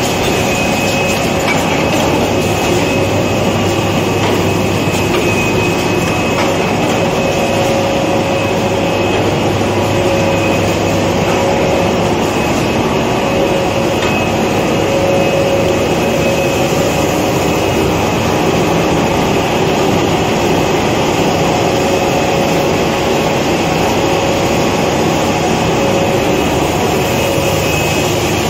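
SCA4-2 two-roll A4 paper sheet cutting and packing machine running at production speed: a loud, steady mechanical din with a faint whine over it.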